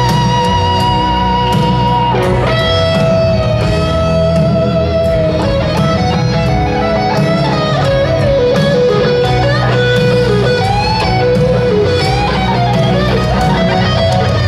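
Live rock band with a Les Paul-style electric lead guitar playing a solo of long held notes with bends and slides, over bass, drums and keyboard.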